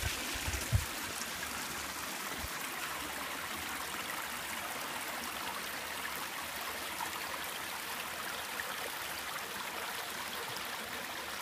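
Spring water running steadily, trickling over rocks in a small shallow run, with a low thump just under a second in.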